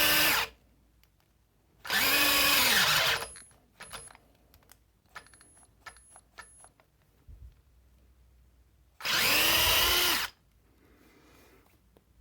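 Parkside Me PMBSA 4 A1's small 4 V brushless cordless drill, in second gear with a 10 mm wood bit, running in three short bursts of about a second and a half. Each time its whine rises, then sags and cuts out, a sign that the 10 mm bit is too much for the drill. Light clicks and ticks fall between the second and third bursts.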